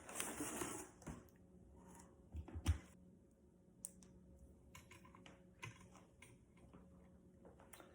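Quiet, scattered light clicks and taps, with the loudest pair about two and a half seconds in.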